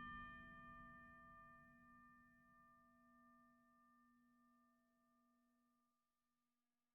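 The last note of background music ringing out and fading away, then near silence.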